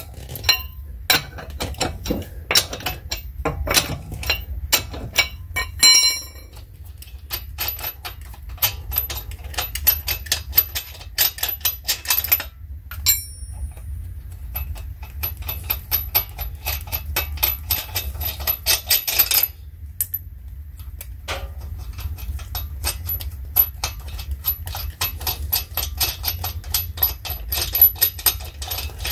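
Car wheel lug nuts being loosened with a lug wrench and spun off by hand: a dense run of short metallic clicks and clinks, sharpest in the first few seconds.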